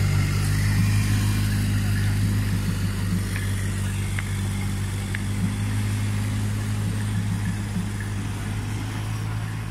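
A steady low engine hum, with faint voices of people passing.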